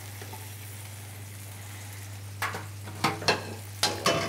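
Prawns sizzling in olive oil in a frying pan over a steady low hum. From about two and a half seconds in come a handful of sharp clinks and knocks of a utensil against the pan as the prawns, seared on one side only, are lifted out.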